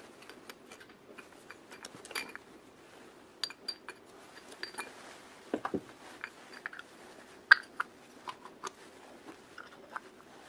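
Sharp clicks and clinks of needle-nose pliers and hard, painted parts knocking together as a two-piece cylindrical cover is worked and fitted onto an electric motor housing. A brief lower scrape comes a little past halfway, and the loudest click is about three-quarters through.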